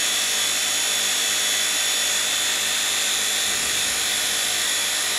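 Steady high-pitched electrical whine from the resonant single-wire power transmitter, its automotive ignition coils driven by pulsed IGBTs at about 4.17 kHz, the frequency at which the system is resonating.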